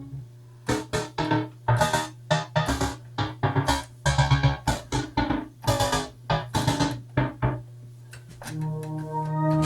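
Novation XioSynth synthesizer playing a patch of short notes that strike and fade, about two a second, over a steady held bass note. Near the end a sustained organ-like chord swells in.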